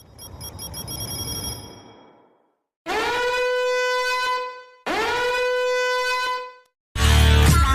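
A string of separate sound-effect clips. First comes a swelling, fading whoosh with high ringing tones. Then two identical horn-like blasts, each held steady for under two seconds after a quick upward slide in pitch. Loud music starts near the end.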